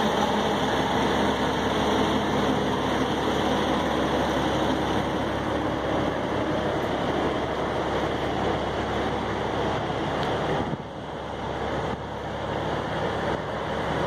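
Semi truck's diesel engine idling, a steady low rumble with a dense noise over it, dropping in level about eleven seconds in.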